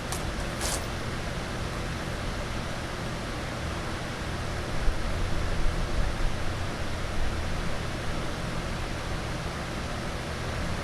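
Steady machine hum under an even hiss: an air compressor and a Smoke Pro smoke machine running, pushing pressurized smoke into the engine for a vacuum-leak smoke test. Two short clicks come at the very start, and the low rumble grows rougher and louder for a few seconds in the middle.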